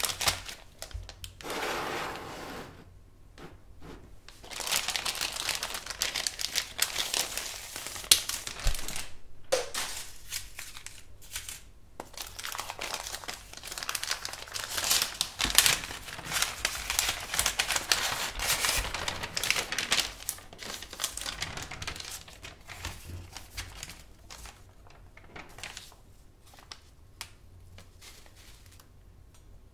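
Paper wrapping crinkling and rustling as it is unfolded by hand from around a mechanical keyboard's plate. It comes in bursts, runs nearly continuously through the middle and dies down to a few faint rustles near the end.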